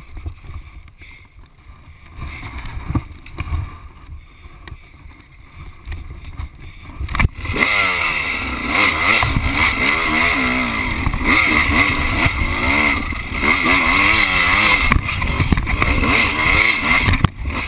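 Dirt bike engine, faint and low for the first seven seconds, then loud from about seven seconds in as the bike is ridden hard up a dirt trail, its revs rising and falling again and again, with wind and dirt noise over it.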